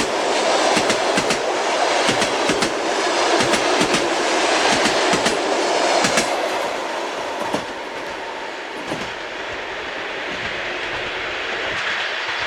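Passenger train wheels clattering over the rail joints over a steady rolling rumble. About halfway through, the clicks thin out and the running becomes smoother and a little quieter.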